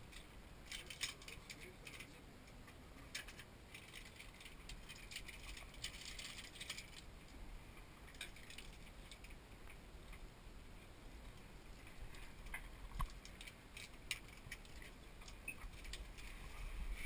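Faint rustling and small metallic clicks and rattles of diving gear being handled, scattered throughout and busiest in the first half.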